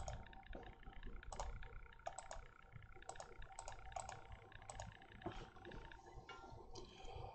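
Faint, irregular clicking and tapping of computer keys.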